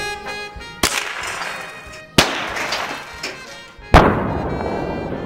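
Three .22 LR gunshots, about a second and a half apart, each trailing off in a rushing echo; the last is the loudest. Brass music ends just before the first shot.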